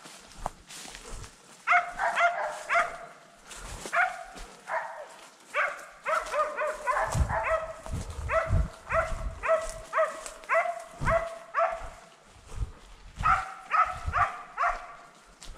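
Hunting dogs barking in clusters of short, high yelping calls, over and over, as they work the cover for wild boar. Footsteps thud on the forest trail in between.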